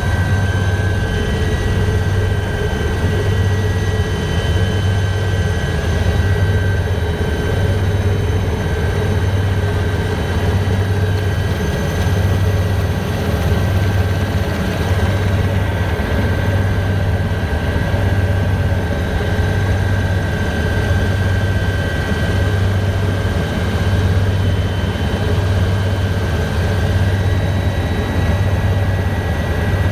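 Helicopter in flight, heard from on board: a steady engine and rotor drone with an even, repeating low throb from the rotor blades and a steady whine above it.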